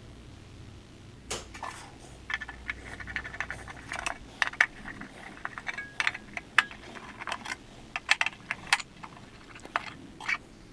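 Small metal guitar hardware handled on a work surface: irregular sharp clicks and clinks, with a few short ringing pings.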